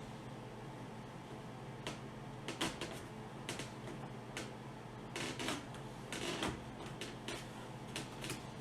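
Irregular plastic clicks, knocks and short scrapes as a two-piece plastic mounting fastener for a snowmobile windshield bag is worked back together by hand, a fiddly fit.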